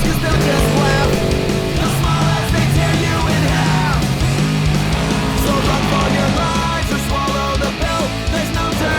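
Loud, fast hard-rock music with electric guitar and drums.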